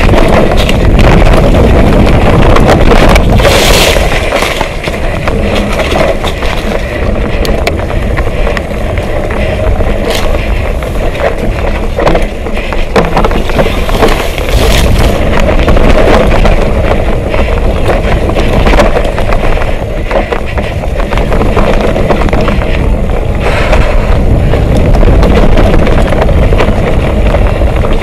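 Mountain bike riding fast down a dirt trail: knobby tyres rumbling over the ground and the bike rattling over bumps, with wind buffeting the microphone.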